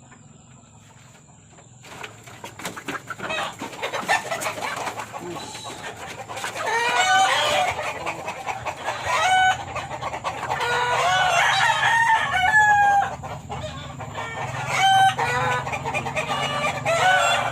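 Chicken clucking and calling in a series of short pitched calls, starting about a third of the way in. Before that come faint clicks and rustling, beginning about two seconds in.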